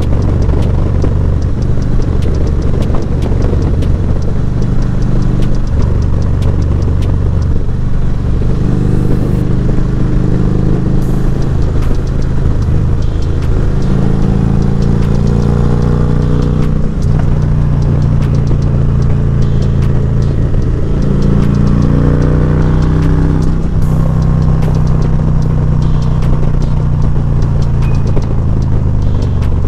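Harley-Davidson Electra Glide V-twin engine running under way, its pitch rising and falling with throttle and gear changes, climbing twice as it revs up.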